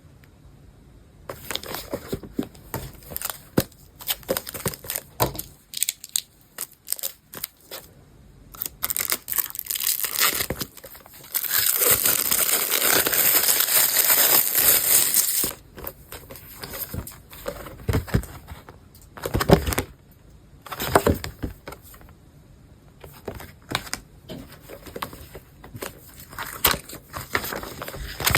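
Book packaging being handled and unwrapped by hand: irregular crinkling, rustling and light taps, with one steady tearing noise of about four seconds near the middle.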